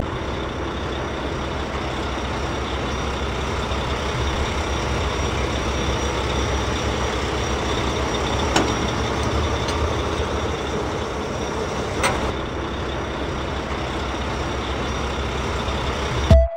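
Steady running noise of a vehicle or machine motor, even throughout, with a couple of faint clicks partway through.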